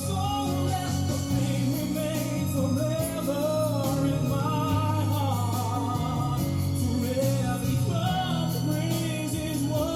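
Background music: a sung love ballad with a male voice over instrumental accompaniment.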